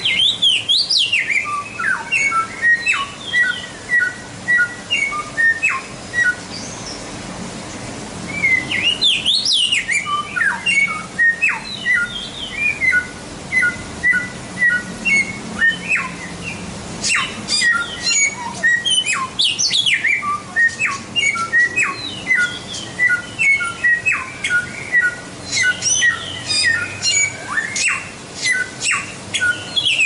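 A samyong songbird singing a masteran recording: repeated phrases of short clipped whistles that hop between two pitches, broken by quick rising and falling sweeps. The song pauses briefly about seven seconds in, then resumes and grows busier towards the end.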